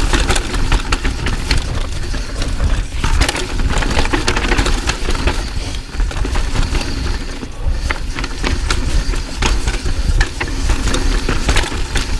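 2019 Pivot Firebird 29 mountain bike ridden fast over bumpy, rough trail: a constant rumble of wind and tyres on the microphone, with dense, irregular clicks and rattles of the chain and bike over the bumps.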